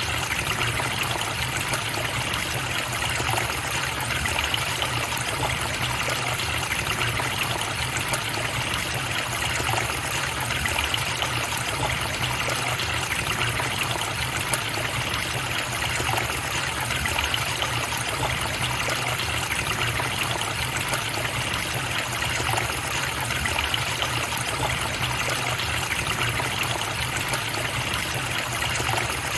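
A forest river or stream running, a steady, unbroken rush of flowing water with no change in level.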